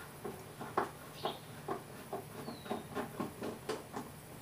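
Light clicks and rattles of hands handling parts at an ATV's opened air intake, about three or four a second, with one short squeak about halfway and a faint steady hum underneath.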